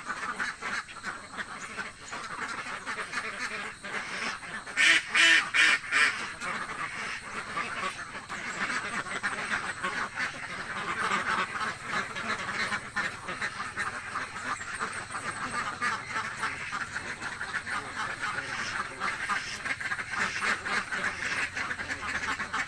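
A flock of hungry domestic ducks quacking continuously, with a run of about four loud quacks from a close duck around five seconds in.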